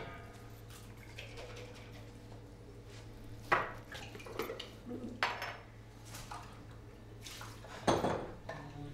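Glassware and a metal jigger clinking and knocking on a bar counter while liquid is poured, a few sharper knocks standing out, the loudest about a third of the way in and near the end. A steady low hum runs underneath.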